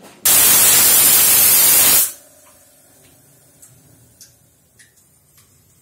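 A loud, even burst of hissing for just under two seconds that starts and stops abruptly, followed by a faint steady background hum with a few light ticks.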